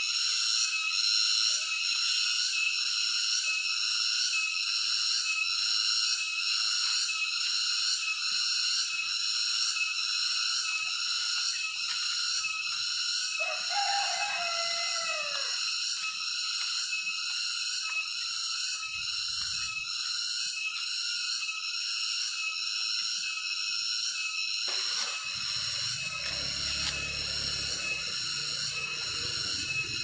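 A high-pitched insect chorus drones steadily, pulsing about twice a second. A falling whistled call sounds about halfway through, and soft background music comes in near the end.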